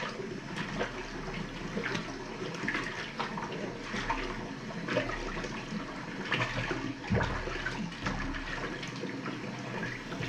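Water sloshing and splashing in a small bath basin as a wet Papillon puppy is rinsed by hand, with irregular splashes throughout.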